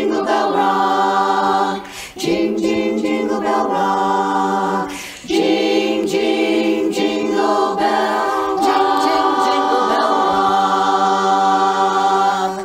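Women's barbershop chorus singing a cappella in close harmony, holding sustained chords in three phrases. The last chord is held for about four seconds and then cut off cleanly, ending the song.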